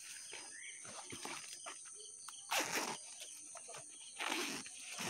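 Plastic wrapping and a nylon backpack rustling as they are handled, in short bursts, the largest about two and a half and four seconds in.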